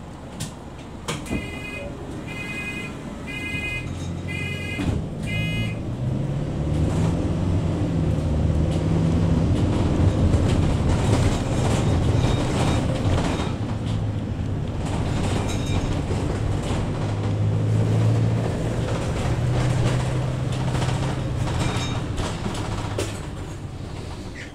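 Mercedes-Benz Sprinter 516 CDI minibus's diesel engine heard from inside the cabin, its note rising and falling as the bus pulls away and works through the gears, then dying down near the end as it slows. In the first few seconds there are about five short electronic beeps.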